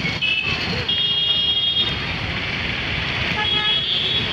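Street traffic rumbling by, with vehicle horns tooting several times. The longest toot lasts about a second, and another comes near the end.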